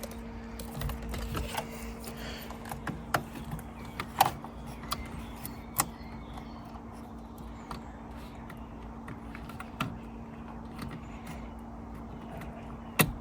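Small scattered clicks and rattles of hands working the steering-wheel airbag's plastic wiring connectors into their sockets, with a sharper click near the end, over a steady low hum.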